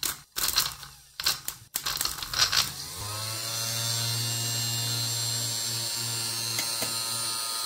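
A few handling clicks, then about three seconds in a brushed DC motor starts up and runs steadily, spinning a brushless motor through a shaft coupling: an even hum with a high hiss. The brushless motor is working as a generator under load, heating a coiled resistance wire.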